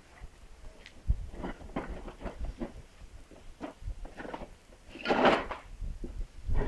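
Plastic ride-on toy car rattling and scraping over concrete paving stones as a toddler pushes it along, with scattered knocks and a louder scraping burst about five seconds in.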